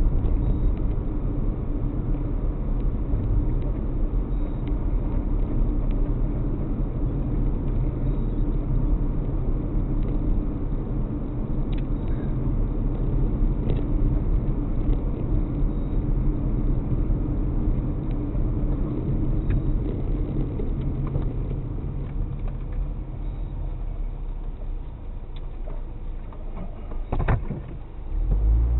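Car driving on a town road, heard from inside the cabin through a dashcam microphone: a steady low rumble of engine and tyre noise. Near the end there is a brief louder low surge.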